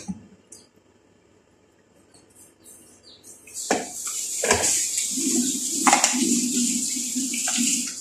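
A few knocks of kitchenware, then from about three seconds in a steady rushing hiss with a low wavering hum under it, broken by a few more knocks.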